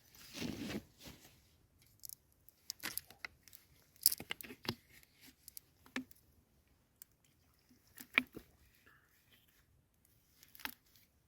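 People settling down to sleep in a tent, with a brief swish near the start, then scattered rustles, crinkles and small sharp clicks from fabric and bedding being moved.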